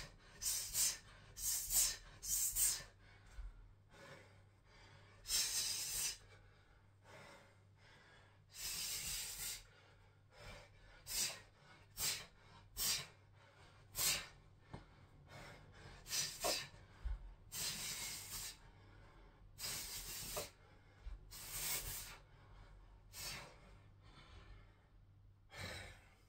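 A man's short, sharp hissing exhalations as he throws fast air punches and hand strikes, coming in irregular clusters about every second or so.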